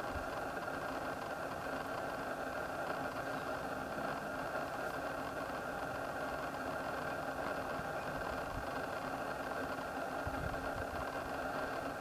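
Steady hum of an idling car engine, unchanging throughout, with a few brief low thumps about ten seconds in.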